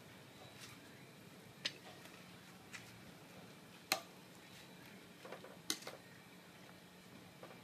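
Metal ladle clinking against the inside of a stainless steel pot during stirring: a few separate sharp clinks, the loudest about four seconds in, with softer taps in between.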